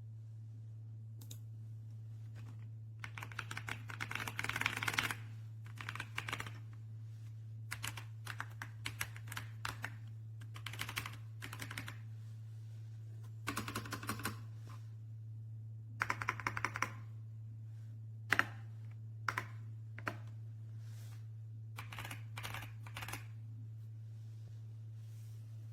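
Typing on an RK Royal Kludge S98 mechanical keyboard: bursts of rapid key clicks with short pauses between them. A steady low hum runs underneath.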